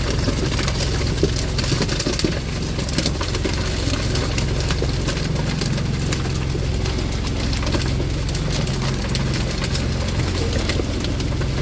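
Engine aboard a net-fishing boat idling steadily, a constant low hum with scattered light clicks over it.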